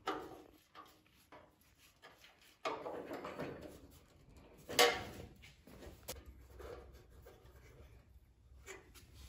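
Handling noise of metal griddle parts being fitted with a hand screwdriver: scattered knocks and scraping of sheet metal, the loudest knock about five seconds in.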